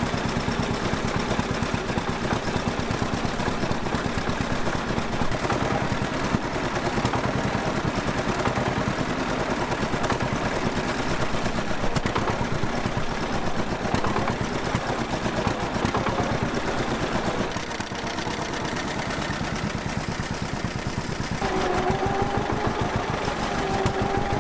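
John Deere B two-cylinder engine running with a steady, rapid popping, unevenly: not running right, which the owner puts down to a carburetor needing cleaning. A steady whine comes in near the end.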